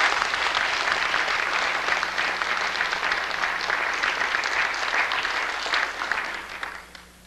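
Audience applauding after a choir's song, dying away about seven seconds in.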